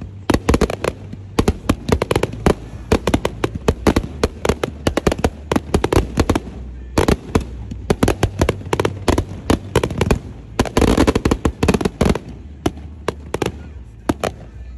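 Fireworks going off: a rapid, irregular run of sharp pops and bangs, thickest about ten to twelve seconds in.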